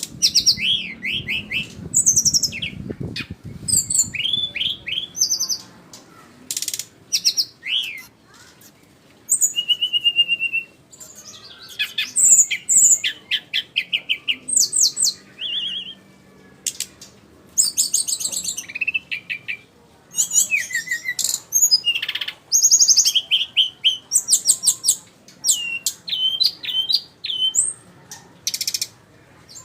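Jungle flycatcher (sikatan rimba) singing: short, rapid phrases of high chirping notes, each a quick run of repeated or sliding notes, broken by brief pauses.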